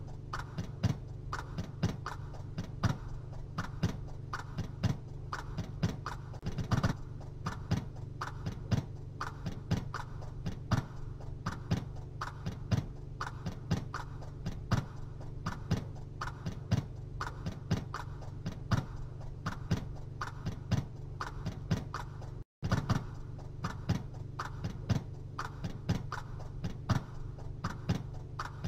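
Regular ticking, about two or three ticks a second and some louder than others, over a steady low hum. It cuts out for an instant about twenty-two seconds in.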